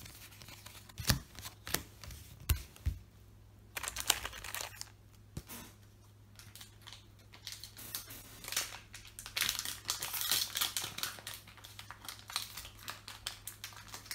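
Trading-card booster pack wrapper crinkling and being torn open, with a few light knocks of cards being handled early on. The crinkling comes in a short spell about four seconds in and a longer one from about eight seconds.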